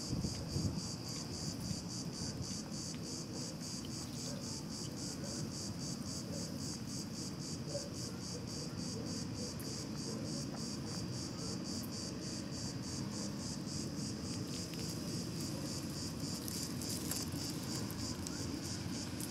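Insects chirring in a fast, even pulsing rhythm, several pulses a second, over a steady low rumble.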